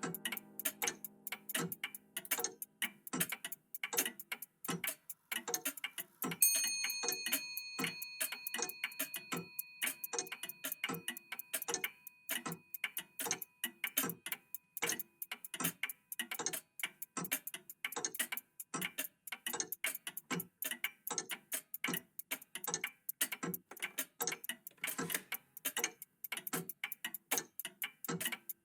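Several old mechanical clocks ticking together, their ticks overlapping in a busy, uneven rhythm. About six and a half seconds in, a single high bell chime strikes once and rings out slowly over several seconds while the ticking carries on.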